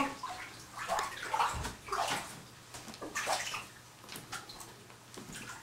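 People climbing and stepping in a bathtub: scattered short squeaks and bumps against the tub.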